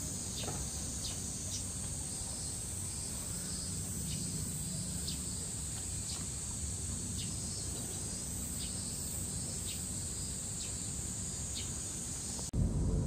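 Steady high-pitched drone of summer cicadas, with short high chirps every half second to a second over it. Just before the end it cuts off and a louder low rumble begins.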